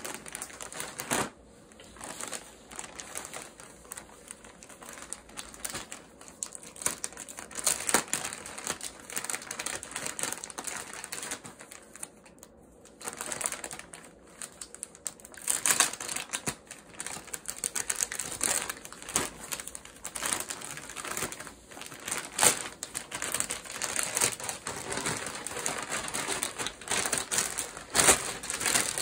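Black plastic poly mailer bag crinkling and rustling as hands handle it and pull it open, with irregular sharp crackles and snaps.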